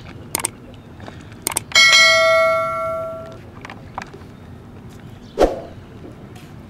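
Subscribe-button animation sound effect: two quick mouse clicks, then a bell ding that rings out and fades over about a second and a half. A single dull knock follows a few seconds later.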